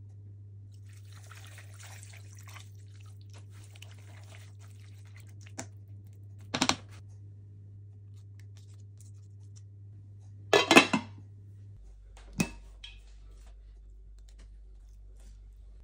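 Stock poured from a glass measuring jug into a slow cooker's ceramic crock, a faint splashing for a few seconds. Then a few sharp knocks and clinks of utensils and vessels against the crock, the loudest cluster about eleven seconds in.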